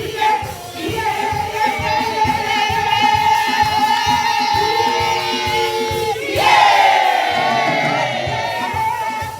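Worship singing with a band: voices hold long notes over a steady beat, then move to a new note about six seconds in.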